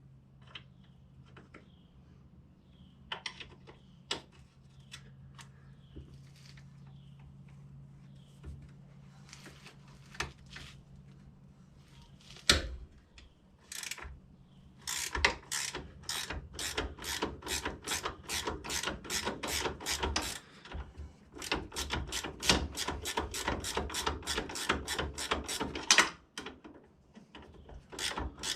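A 15 mm ratcheting wrench clicking as the shock-absorber bolt is worked loose. At first come scattered clicks and one sharp knock; from about halfway there is a steady run of quick ratchet clicks, about four or five a second.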